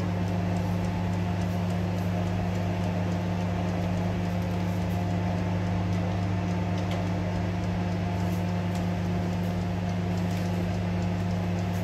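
Electric oven running while puffs bake, giving a steady low electrical hum with a higher overtone and no change in level.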